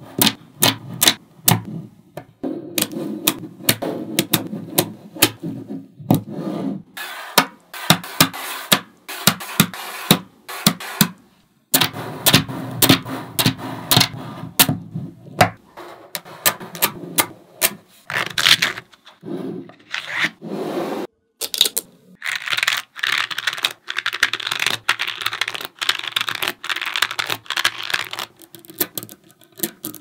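Small neodymium magnet balls clicking and snapping together in quick, irregular runs as they are pressed into rows and rings, with denser clattering stretches.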